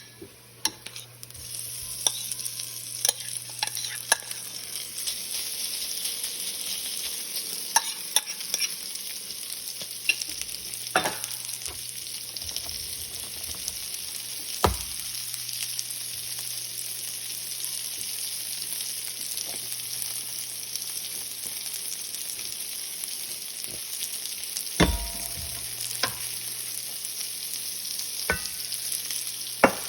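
Food sizzling steadily in a frying pan, starting about a second and a half in, with scattered clicks and knocks of a utensil stirring against the pan.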